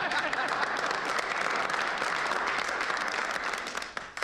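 A group of men applauding together, many hand claps at once, tapering off near the end.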